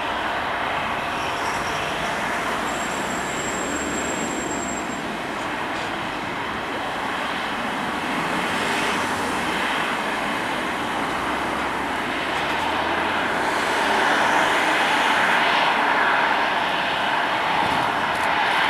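Boeing 777-300's twin jet engines running during take-off: a steady rushing jet noise that grows louder about two-thirds of the way through.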